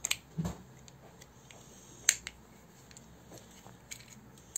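Small hard-plastic parts of a wind-up toy train clicking and knocking as the shell is pressed onto the chassis: a few sharp clicks and a soft bump, the loudest click about two seconds in.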